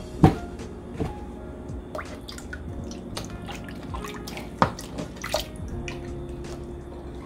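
Kitchen preparation sounds: scattered knocks and clicks of dishes and utensils, with dripping and splashing liquid. The sharpest knocks come about a quarter second in and again after about four and a half seconds.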